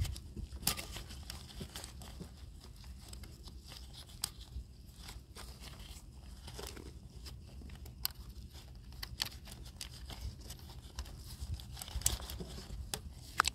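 Scattered clicks, crinkles and short scrapes of hand work on a fuel injector's wiring connector while it is secured, with a low steady hum underneath.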